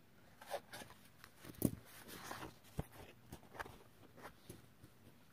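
Paper crinkling and rustling as the point of a pair of scissors is worked through a sheet of coloured paper to poke a hole, with irregular soft clicks and taps, the sharpest about one and a half seconds in.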